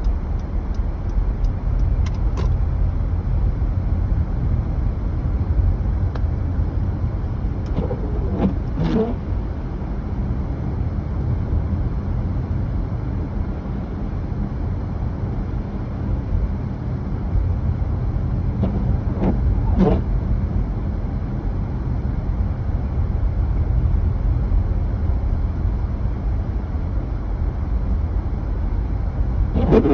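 Car driving, with a steady low rumble of engine and road noise. A few brief higher sounds stand out over it, about 8 to 9 seconds in and again at about 20 seconds.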